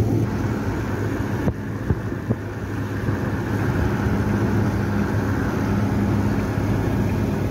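Running car heard from inside the cabin: a steady low engine hum with road and tyre rumble, and a few light knocks about one and a half to two and a half seconds in.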